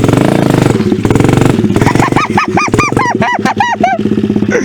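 Pit bike engine running throughout. About two seconds in, a quick run of about ten high calls comes over it, each rising and falling, coming faster and dropping in pitch toward the end.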